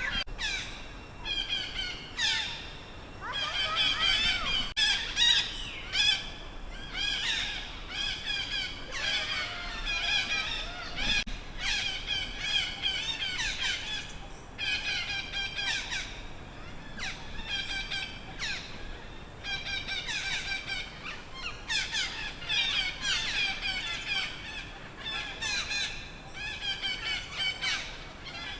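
A frightened baby monkey screaming and squealing in distress, high shrill cries repeated in quick bouts over and over with only brief breaks.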